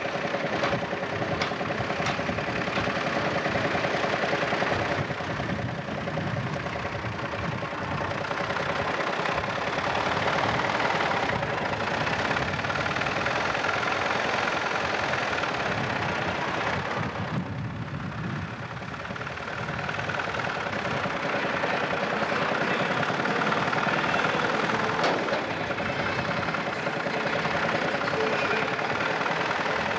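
Vintage tractor engine running steadily at low speed as the tractor is driven slowly, dipping slightly in level about halfway through.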